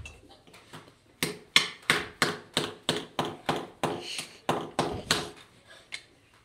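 A steady, rhythmic run of sharp knocks, about three a second, starting about a second in and stopping about five seconds in.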